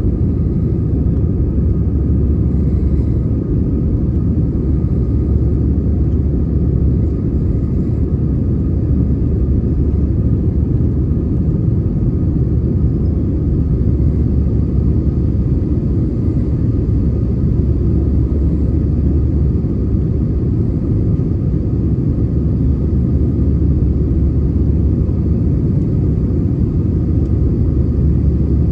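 Jet airliner engines and rushing air, a loud steady low rumble inside the cabin during the climb after takeoff, with a faint steady whine above it.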